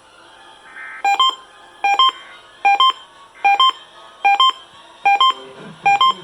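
Emergency Alert System test tones from a broadcast: a regular train of short, loud electronic bleeps starting about a second in, roughly one every 0.8 seconds. Each bleep is a quick two-part chirp of stepped tones.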